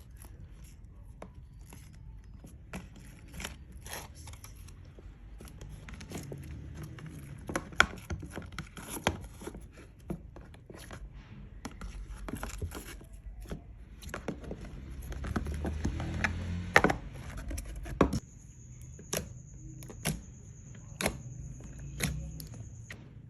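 Lipsticks and eyeshadow compacts being handled and opened: irregular sharp clicks and taps of their plastic cases, with scraping. A thin steady high tone joins in for the last five seconds or so.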